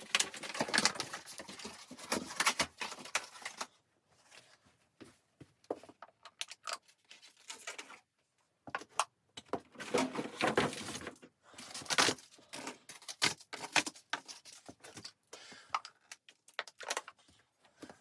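Irregular rustling with light clicks and clattering, close by, coming in bursts of a few seconds with short quiet gaps between.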